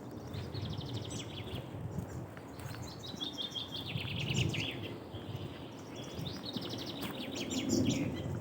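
A songbird singing three phrases of rapid repeated notes, each a second or two long, over a steady low rumble of background noise.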